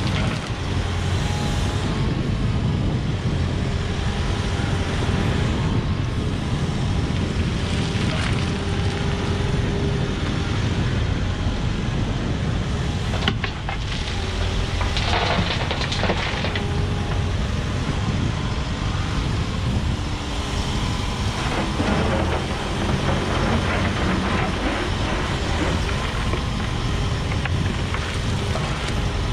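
Diesel engine of a Volvo EWR150E wheeled excavator running steadily under working load, with a faint steady whine over the low drone. A sharp knock comes about thirteen seconds in, followed by a short clatter a couple of seconds later.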